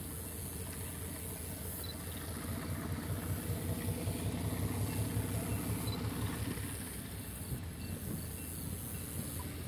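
Diesel locomotive engine rumbling as it approaches at low speed hauling passenger cars; the engine grows louder as it is throttled up about three seconds in, then eases a few seconds later.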